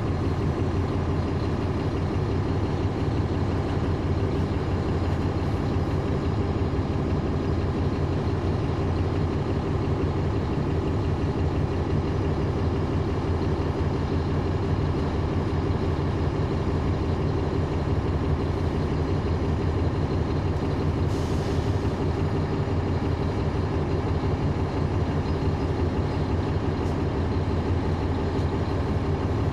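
Caterpillar C13 ACERT inline-six diesel of a NABI 40-foot transit bus, heard from inside the bus, running steadily with no change in pitch. A brief hiss of air comes about two-thirds of the way through.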